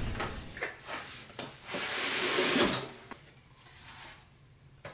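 Handling noises: several light knocks and clicks, then a sliding scrape lasting about a second, followed by one more click and quieter handling.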